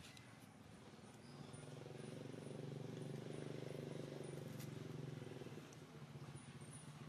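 A faint, low motor hum swells through the middle and fades near the end, with a few light clicks.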